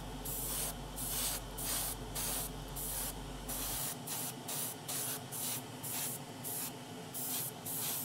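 Airbrush spraying grey filler primer in short hissing bursts, about two a second, laying light mist coats onto a small plastic part.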